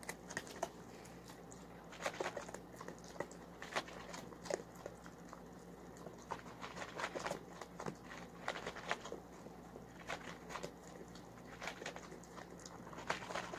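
A dog eating from a bowl on the floor, chewing with irregular crunches and clicks.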